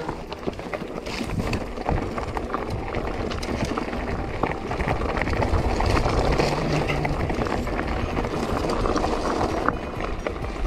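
Lapierre Zesty AM mountain bike rolling fast down rocky singletrack: tyres crunching over loose stones and the bike rattling with a steady stream of small knocks and clicks, over a constant low rumble of wind on the camera microphone.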